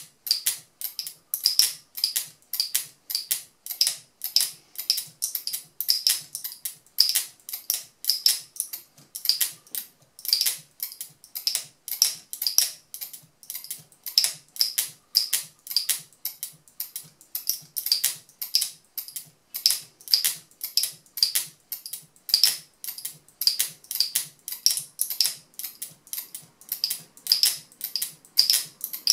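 Turquaz speargun camera mount's locking mechanism clicking over and over as a camera housing is snapped in and released, sharp clicks about two to three a second, in a steady rhythm: the lock being cycled in a repeated-use durability test.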